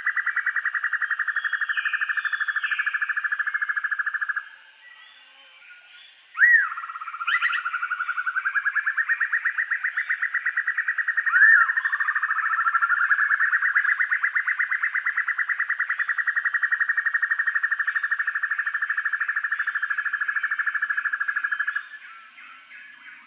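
Banded broadbill (sempur-hujan rimba) calling in long, rapid trills of evenly spaced notes between about 1 and 2 kHz. The first trill stops about four seconds in. After a short pause come a few sharp upslurred notes, then the trilling resumes and carries on until near the end.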